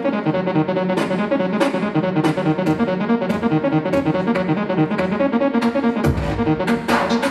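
Dance routine music played over the hall's sound system: a piano-led track over a steady beat of sharp hits, with a deep bass coming in about six seconds in.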